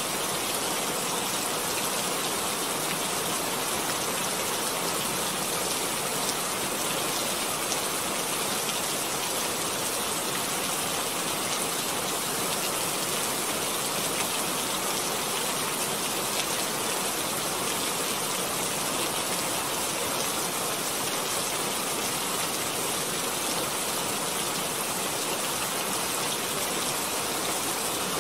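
A steady, even rushing hiss, rain-like, with no breaks or changes.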